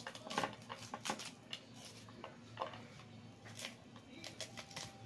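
A large knife shaving kernels off a cob of white glutinous corn: short, irregular scraping cuts, roughly one a second.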